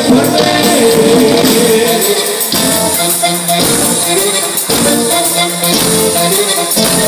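Live norteño band music, loud: button accordion carrying the melody over bass, guitar and a steady drum beat, with singing.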